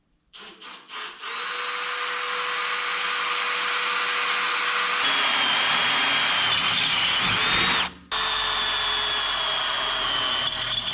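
Power drill with a step bit drilling bolt holes through painted metal. It gives a few short trigger blips, then runs steadily with a high whine, stops briefly about eight seconds in, and runs again.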